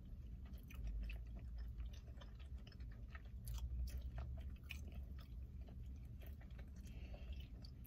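Close-up chewing of a mouthful of fufu and okra stew with meat: soft, irregular mouth clicks.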